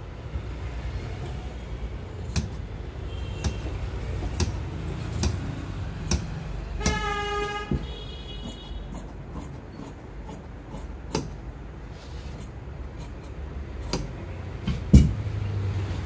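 Large tailor's shears cutting through checked suiting fabric on a cutting table, the blades snipping shut roughly once a second over a steady low rumble. About seven seconds in, a vehicle horn sounds once for about a second, and a heavier thump comes near the end.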